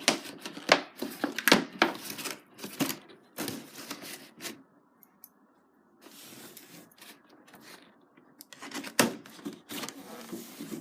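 Toy packaging being opened by hand: a run of sharp rips and crackles, a short pause about halfway, then softer rustling and more rips near the end.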